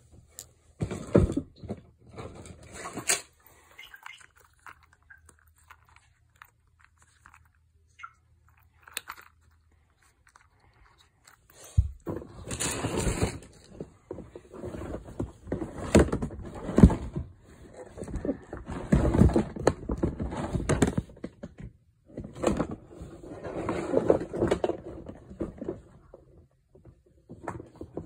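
Silicone pop-it fidget toy being pressed and handled: runs of quick clicks with rubbing handling noise, sparse at first, a quiet stretch of several seconds, then dense, louder clusters through most of the second half.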